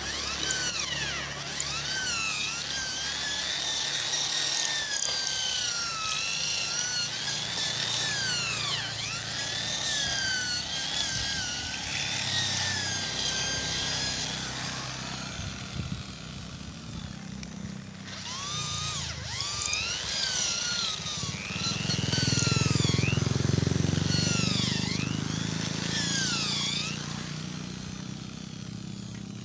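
Corded electric drill boring into a concrete curb, its motor whine swooping up and down in pitch as the bit bites and frees. There is a short lull past the middle, then a louder low rumble as the bit cuts harder.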